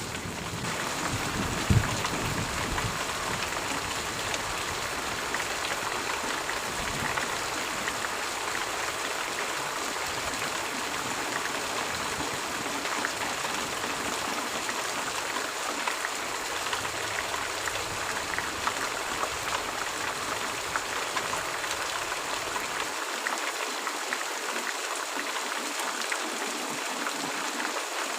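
Steady rain falling, an even hiss of drops. A low rumble of thunder fades in the first couple of seconds, with one sharp crack about two seconds in, and the deep low end drops away near the end.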